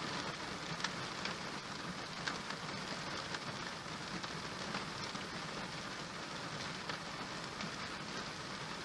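Steady rain falling on a surface: an even hiss with scattered sharper drop ticks.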